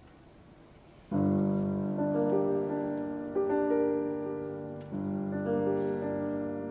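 Grand piano playing solo: after a brief hush it comes in about a second in with a full chord, then goes on with slow, held chords and melody notes struck afresh every second or so.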